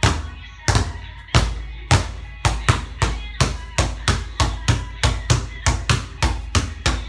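A basketball being dribbled hard on a court, each bounce a sharp slap. The bounces come slowly at first, then quicken about two seconds in to a fast, even rhythm of about three a second.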